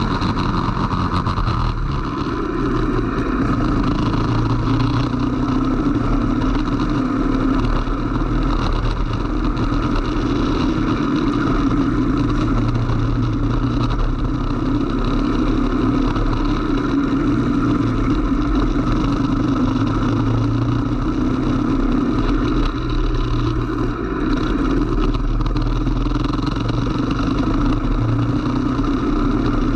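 Racing kart engine running hard on track, heard from a camera mounted on the kart. The engine note stays loud and steady and eases briefly a couple of times as the kart slows for corners.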